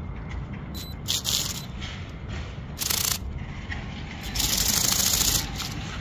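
Bionic Bird X-Fly ornithopter's flapping wings buzzing and scraping against asphalt in three short bursts, the last about a second long, as it fails to lift off; the owner suspects a weak battery. A steady low rumble runs underneath.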